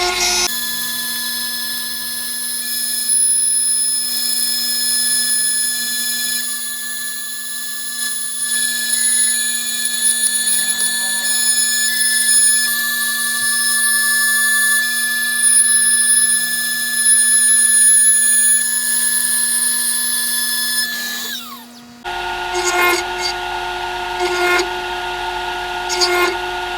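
Fox Alien CNC router spindle milling an aluminium chassis plate: a steady, high machine whine made of several constant tones. About 21 seconds in, the whine falls away as the spindle slows. A louder cutting passage follows, swelling about once a second as the cutter works back and forth.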